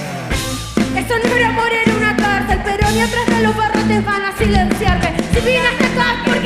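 Live band music with a sung vocal over drums and bass; the full band comes in louder just under a second in, with steady drum strikes.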